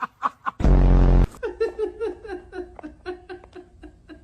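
A person laughing, cut into about half a second in by a loud, low buzzing blast lasting just over half a second, like a fart. The laughter then carries on in quick pulses, fading.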